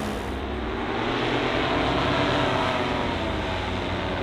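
Several paramotor engines droning overhead, heard from the ground, their pitches slowly drifting and crossing.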